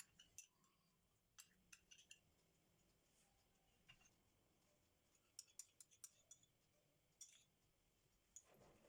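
Near silence with faint, scattered small clicks and taps, a few in quick clusters around the middle and near the end.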